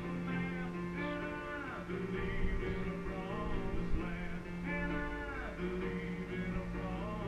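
Background music: acoustic guitar strumming with singing, from a live concert recording.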